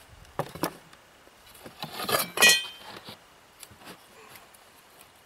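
Tools and lumber being handled on a plywood work surface. A cordless circular saw is set down with a couple of knocks about half a second in, then about two seconds in a metal tool lands with a louder clink and a brief ring, followed by a few light taps.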